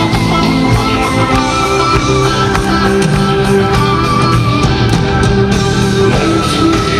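A metal band playing live, loud and unbroken, with distorted electric guitar, drums and long held notes, recorded from the audience in a large arena.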